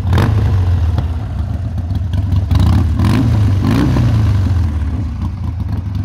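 2018 Harley-Davidson Sportster 1200 Custom's air-cooled V-twin running steadily through Vance & Hines exhausts, with a brief rise and fall in revs about three to four seconds in.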